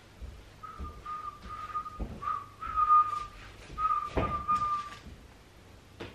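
A person whistling short held notes at nearly one pitch, in broken phrases. Dull thumps come about two seconds in and again, louder, about four seconds in.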